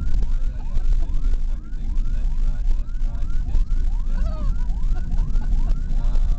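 Police car siren sounding in quick repeated rising sweeps, about two or three a second, over the steady low rumble of the car's engine and tyres on a rough road, heard from inside the following car.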